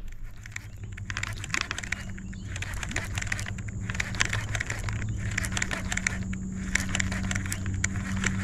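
Steady low hum of a small motor, with irregular light clicks and ticks over it.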